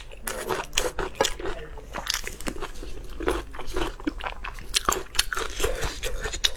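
Close-up eating sounds of seafood: crunchy bites and wet chewing, many irregular crunches a second without pause.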